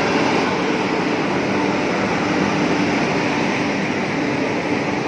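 A passenger train pulling into a station platform, its coaches rolling past close by: a loud, steady noise of wheels running on the rails.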